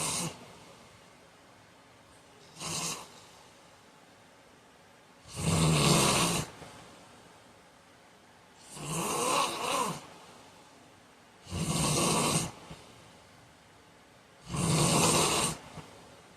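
A man snoring in his sleep: four loud snores about three seconds apart, each lasting about a second. A shorter, fainter snore comes just before them.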